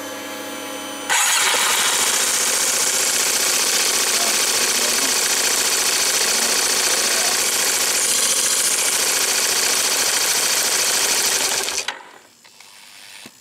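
Yamaha Majesty YP400 scooter's single-cylinder four-stroke engine heard up close: a steady hum for about a second, then the engine starts and runs evenly for about eleven seconds before it is switched off and cuts out suddenly near the end. It is run briefly after an oil change with the oil-pressure check bolt loosened, to verify that the engine has oil pressure.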